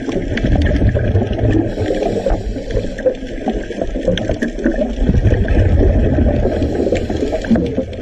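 Muffled rumbling and gurgling of water recorded by a camera underwater, with scattered faint clicks.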